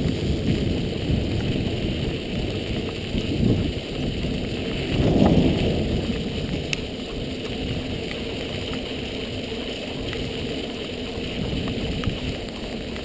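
Dog scooter's wheels rolling on wet pavement, with wind on the microphone: a steady rushing rumble, briefly louder about five seconds in.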